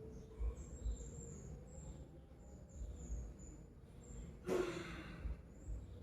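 One short, sudden burst of breath from a person about four and a half seconds in, over faint high-pitched chirping in the background.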